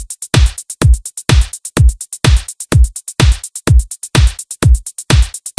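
Progressive house track with drums alone: a deep four-on-the-floor drum machine kick about twice a second, an open hi-hat on each off-beat, and quick closed hi-hat ticks.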